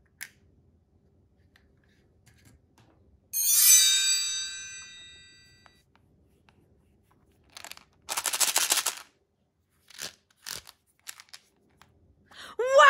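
A bright ringing chime that fades away over about two seconds, followed by a short burst of rattling like small hard candies shaken in a plastic container, then a few light plastic clicks. Near the end a falling, sliding tone begins.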